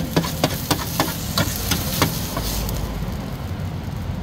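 Metal spatula clacking and scraping against a large steel griddle pan while fried noodles sizzle, as a portion of noodles and egg is scooped up. The sharp clacks come several times a second in the first two seconds, then the sizzle thins. A steady low hum runs underneath.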